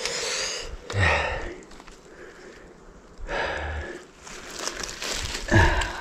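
A man breathing and sniffing close to the microphone, in several short breathy stretches, with a brief murmur about a second in and again near the end.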